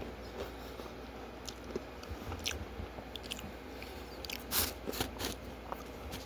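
Chewing and biting crispy fried food, with scattered crunches, the loudest about four and a half seconds in.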